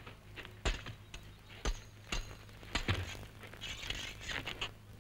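A few sharp clicks and light clinks of swords being handled, spaced roughly half a second to a second apart, then a short rustle. A steady low hum runs underneath.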